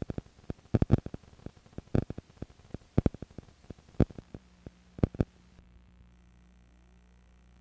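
Crackling clicks from VHS tape playback, the loudest coming about once a second. About five and a half seconds in they stop, and a faint steady hum with thin high tones remains.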